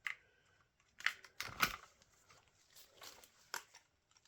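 Scattered light clicks, taps and rustling of a drill and small parts being handled, as a 3.5 mm drill bit is swapped in.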